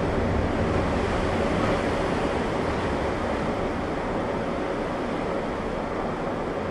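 Wind and heavy rain of a tornado-producing thunderstorm: a steady rushing noise, strongest in the low range, without a siren or any distinct impacts.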